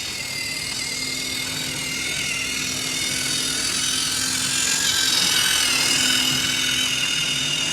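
A small motor whirring steadily with a high, wavering whine, growing a little louder toward the middle.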